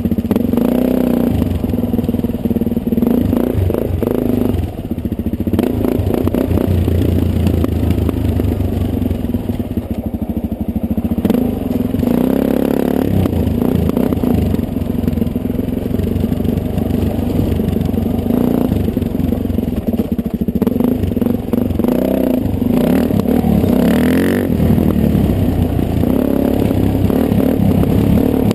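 Dirt bike engine running under way, its revs rising and falling repeatedly while riding a rough trail, with frequent knocks and rattles from the bike over rocky ground.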